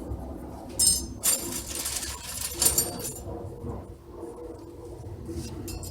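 Small steel brake hardware clinking and scraping as it is handled: the thin metal pad clips on a caliper bracket, with a few sharp clinks about one second in and again near three seconds.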